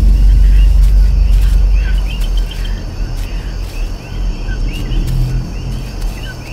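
A deep low rumble, the tail of the film's soundtrack drone, loud at first and fading after about two seconds. Under it runs a night ambience of insects trilling steadily and many short repeated chirps.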